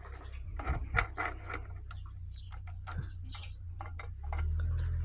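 Irregular light clicks and taps of metal tools and engine parts being handled during engine disassembly, over a steady low hum that gets louder about four seconds in.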